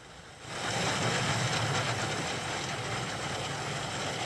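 Rain falling steadily. It comes in suddenly about half a second in and stays at an even level.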